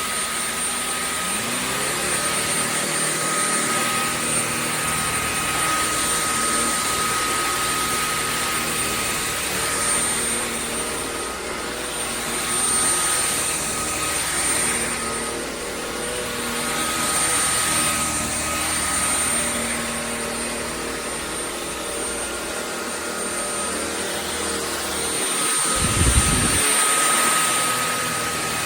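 Shark Clean & Empty cordless stick vacuum running steadily: a rush of air with a thin, steady high whine over it. A brief low thump comes near the end.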